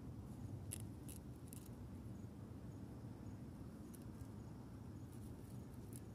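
A fish being cut for bait: faint, crisp snips and crunches, a quick cluster about a second in and more from about four seconds on, over a steady low rumble.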